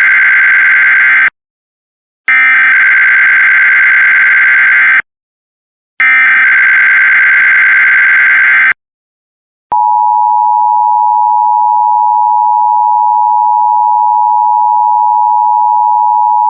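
Emergency Alert System test signal on broadcast radio: bursts of the digital SAME header's data tones, one ending about a second in and two more after short gaps. About ten seconds in the steady EAS two-tone attention signal begins and holds, announcing a coordinated monthly test.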